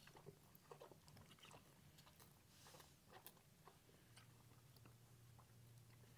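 Faint, irregular wet clicks and smacks of a month-old Tennessee Walking Horse colt sucking his tongue, a habit he shows when drinking milk replacer from a bucket.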